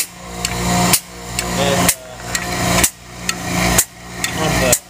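Motor-driven cam rig cycling a clutch master cylinder in an endurance test: a steady motor hum, with a sound that builds over each stroke and ends in a sharp clack, about once a second.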